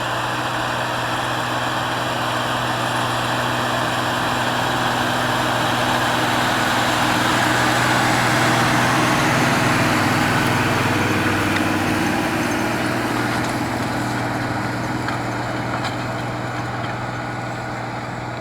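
Tractor's diesel engine running steadily, growing louder to about nine seconds in, then easing off.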